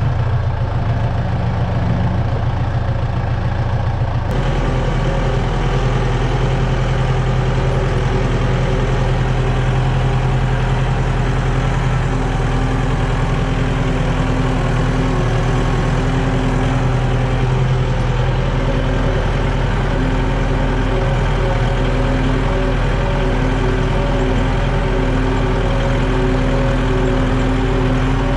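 An engine running steadily; its sound changes abruptly about four seconds in, then holds steady again.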